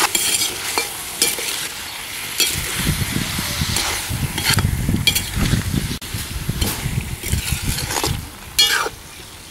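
Perforated steel skimmer scraping and clinking against a metal kadhai at irregular intervals as ash gourd cubes are stirred through boiling sugar syrup, which bubbles and sizzles underneath. The stirring eases off near the end.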